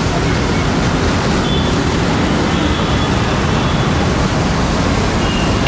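Steady, loud din of a busy roadside street-food stall: a low rumble under an even hiss, with a few faint short high tones.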